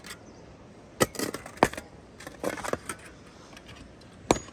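A few sharp metallic clinks and knocks, the loudest three about a second in, half a second later and near the end, with smaller taps between them.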